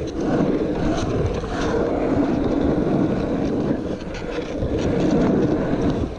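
Wheels rolling over an asphalt pump track, a steady rumble, with wind buffeting the microphone of a moving action camera.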